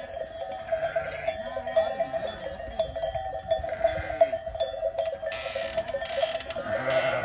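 Bells on a flock of sheep clanking without a break, with sheep bleating now and then, around a second in and again near the end.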